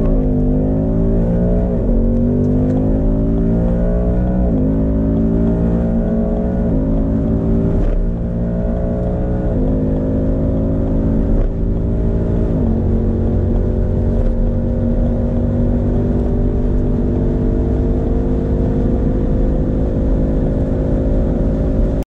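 V8 engine of a 450 hp muscle car accelerating at full throttle from about 60 to 245 km/h. Its pitch rises through each gear and drops sharply at five upshifts, the last about twelve and a half seconds in. After that it climbs only slowly in a high gear.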